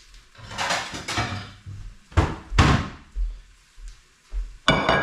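Kitchen handling noises: knocks and scrapes, like a lid or cupboard being opened and pots handled, ending in a ringing metallic clank near the end.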